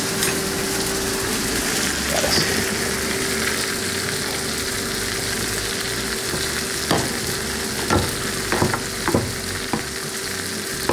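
Steak sizzling steadily in a frying pan, over a faint steady hum. In the last few seconds come about five sharp knocks as roasted tomatillos and chiles are crushed against the bottom of a stainless steel saucepan with a hand masher.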